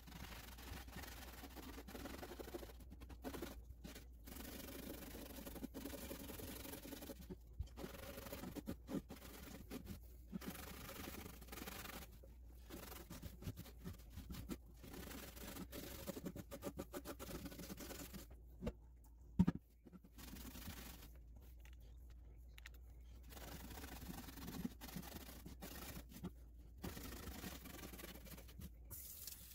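A wet rag scrubbing the ribbed surface of a rusty Lodge cast iron griddle, an uneven faint rubbing and scratching, with one sharp knock partway through.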